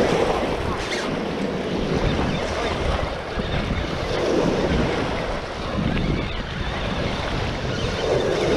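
Small surf waves washing in knee-deep shallows, with wind buffeting the microphone; the wash swells about every four seconds.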